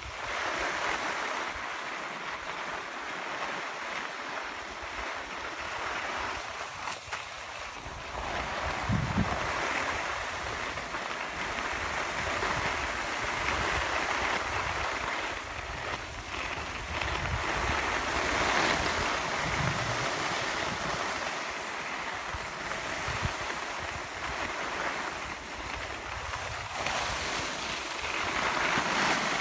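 Steady hiss of skis sliding over packed snow, swelling and easing as the skiers move, with wind on the microphone and a few soft low buffets.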